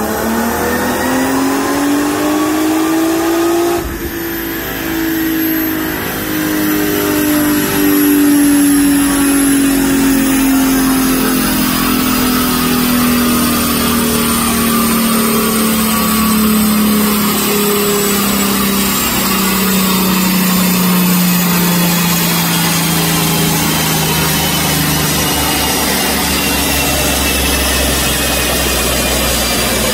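Mercedes-Benz C32 AMG's supercharged 3.2-litre V6, ECU- and transmission-tuned, running loud on a chassis dynamometer during a full-throttle pull: the engine note rises over the first few seconds, breaks briefly, then falls slowly as the engine and dyno rollers wind down, settling to a steadier tone near the end.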